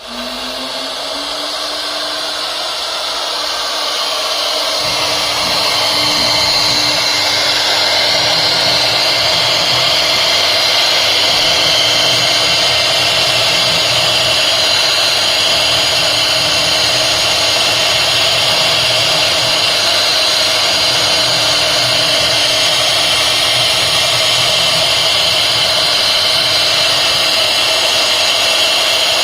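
Acctek AKM1325 CNC router running: the spindle spins up with a rising whine that settles to a steady pitch within the first two seconds. The sound grows louder over the first six seconds and then holds steady, with a lower rumble joining about five seconds in.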